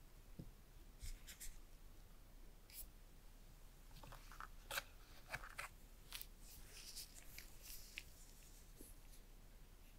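Faint rustles and light clicks of gloved hands handling an iPhone 12's packaging: the Apple sticker sheet, then the coiled USB-C to Lightning cable taken from the box tray. The handling noises cluster about four to five seconds in.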